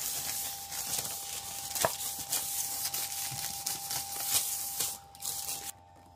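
A cloth rubbed briskly by hand over a bare concrete floor, a scratchy swishing with small knocks, wiping away grit before a self-adhesive floor tile is laid. It stops about five seconds in.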